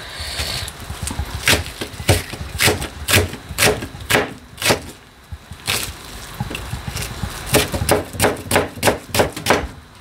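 Kitchen knife slicing onion on a cutting board: a run of sharp knife strokes about two a second, pausing briefly around the middle and coming faster near the end.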